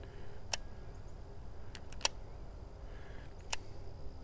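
A handful of sharp clicks from a baitcasting reel being handled, one near the start, three close together in the middle and one late, over a low wind rumble on the microphone.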